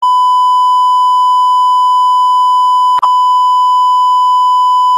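A loud, steady electronic beep held at one high pitch, with a brief dropout and click about three seconds in.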